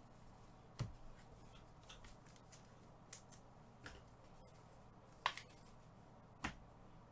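Trading cards and card packs being handled on a table: a handful of light clicks and taps over faint room tone, the sharpest about five seconds in.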